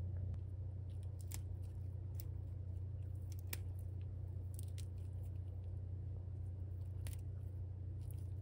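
Fingers pinching and snapping dead leaves and small stems off fresh shepherd's purse plants: scattered small crisp snaps and crackles, roughly one a second, over a steady low hum.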